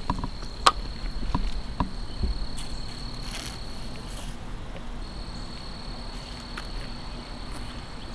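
Crickets trilling as one steady high tone, with a few sharp clicks in the first two seconds.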